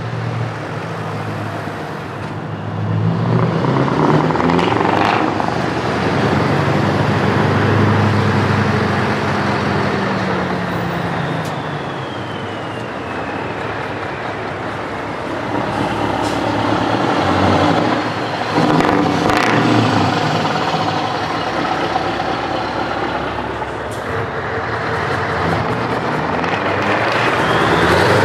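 Diesel engines of Scania semi-truck tractor units driving past one after another. The first swells loudly as it accelerates past, and its engine note and a high whistle fall away as it goes. A second, older Scania comes on with its engine rising near the end, with a few short hisses that sound like air brakes.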